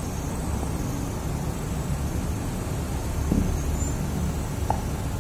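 Steady low rumble of background noise with no speech, with a couple of faint short sounds in the second half.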